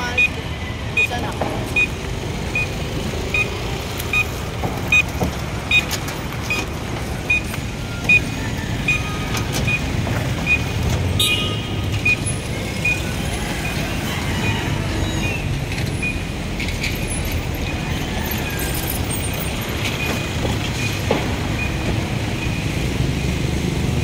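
Steady road traffic noise, with a short high beep repeating about every 0.6 seconds through the first half.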